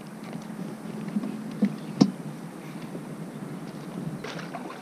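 Rustling and handling noise as someone moves through grass and scrub carrying a fishing rod, with scattered small clicks and one sharp click about two seconds in.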